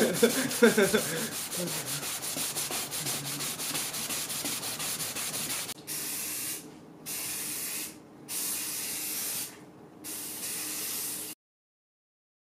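Aerosol spray-paint can spraying onto a car bumper. A long hiss with fast, even ticking comes first, then four short bursts of about a second each, the last ending about eleven seconds in.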